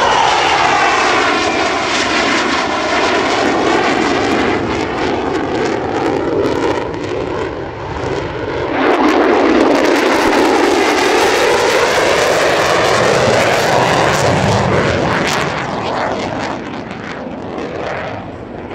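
Lockheed Martin F-35 Lightning II's Pratt & Whitney F135 jet engine passing in a display flypast, its loud jet noise sweeping in pitch as the aircraft goes by. It comes in louder again abruptly about nine seconds in, then fades near the end.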